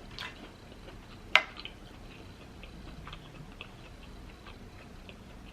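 Close-miked small clicks and light mouth sounds of eating and handling lobster claw, with one sharp click about a second and a half in.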